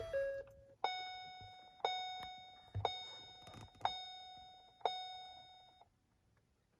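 2016 Ford Transit Connect's dashboard warning chime sounding five times, about once a second, each ding ringing out, after the key is turned to on.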